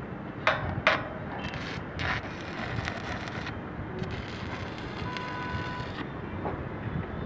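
Steady rumble of wind and distant city traffic heard from high up on a rooftop, with a couple of brief knocks from handling the phone near the start and a short steady tone about five seconds in.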